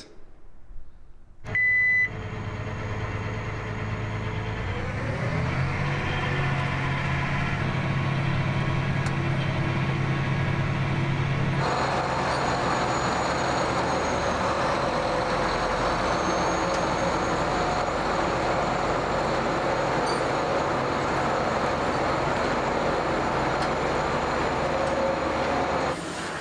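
John Deere tractor engine running steadily, with a short high beep about two seconds in. The engine revs up a few seconds later and holds its speed, and about halfway through the sound turns fuller and noisier.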